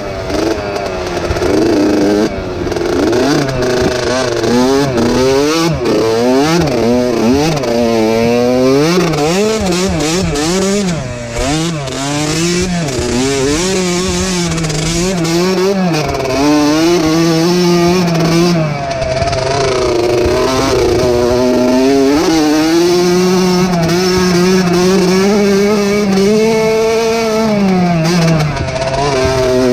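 Dirt bike engine heard from on board while the bike is ridden hard over a trail, its pitch rising and falling constantly with throttle and gear changes.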